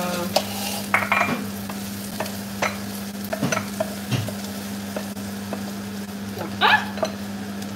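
Courgettes sizzling in a hot frying pan while a wooden spatula scrapes and knocks against the pan, pushing them out into a bowl. A steady low hum runs underneath, and there is one louder scrape near the end.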